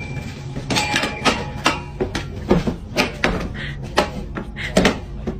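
A string of irregular knocks and clatters, about two or three a second, with a voice now and then.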